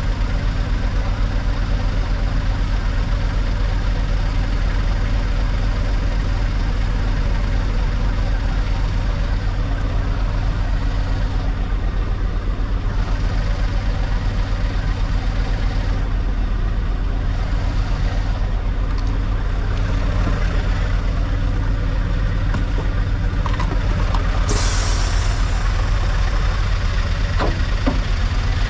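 Scania S770's V8 diesel engine running steadily under load as the 64-tonne truck tries to pull itself out of snow. About 24 seconds in, a sudden hiss of air starts and fades over a couple of seconds.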